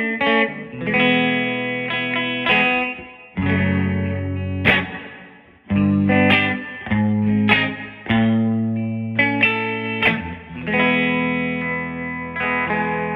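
Electric guitar on its bridge P90-style pickup, played through a Bugera V22 tube amp driving a 1960 Rola Alnico 5 12-inch speaker: a run of strummed chords, each left to ring and die away before the next, with light overdrive.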